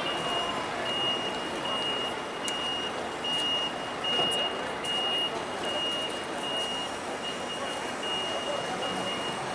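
A work vehicle's back-up warning alarm beeping steadily at one high pitch, about one and a half beeps a second, over crowd chatter and street noise.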